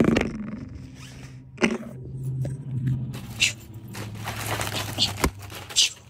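A hand rummaging in a fabric tote bag, rustling and crinkling plastic zip-top bags of dried leaf litter, with a few soft knocks and scrapes as the bags are handled.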